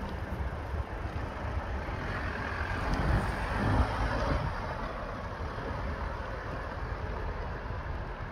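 Steady noise of travelling along a city street, strongest in the low end, with no clear engine note, swelling about three to four seconds in.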